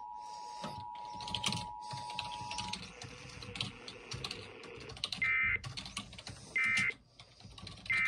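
Emergency Alert System two-tone attention signal, a steady dual tone that stops about three seconds in, followed by three short bursts of data tones, evenly spaced: the End Of Message code sent three times by the EAS encoder/decoder. Scattered clicks run under it.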